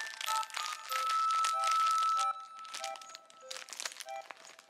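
Background music of short melodic notes, one held for over a second. Under it, in the first half, the crinkling of a plastic bag holding new pom-pom toy balls.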